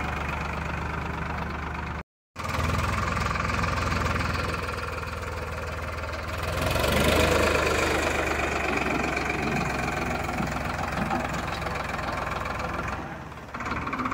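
Tractor's diesel engine running steadily during ploughing, with a knocking beat. It cuts out for a moment about two seconds in and gets louder about seven seconds in.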